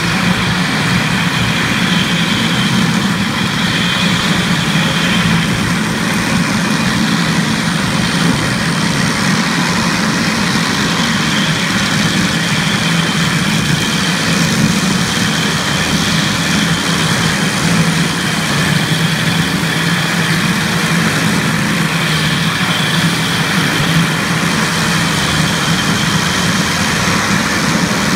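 CONTEC Omega 450 single-disc floor grinder running steadily, its electric-motor-driven grinding disc stripping carpet glue and filler from a mastic asphalt floor: a steady low hum under an even grinding hiss.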